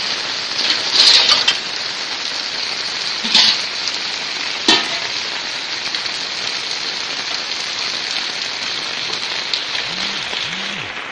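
Heavy rain falling steadily, a constant hiss, with a few brief louder taps about 1, 3.5 and 5 seconds in.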